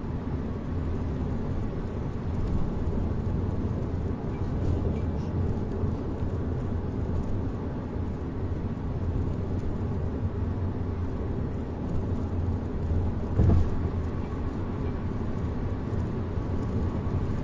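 Subaru Forester driving, heard from inside the cabin: steady road and tyre noise with a low drone, the drone that is being checked as rear wheel bearing noise. A brief bump about thirteen seconds in.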